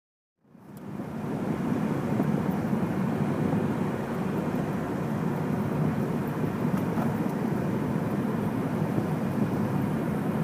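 Steady vehicle road noise, a low even rumble without engine tones, fading in about half a second in after silence.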